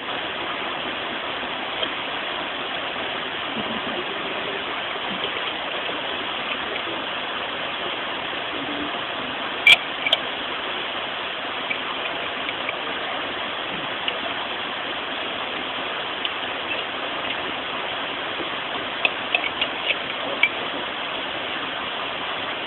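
Steady rush of water in a shallow forest stream, with a few sharp clicks about ten seconds in and several more near the end.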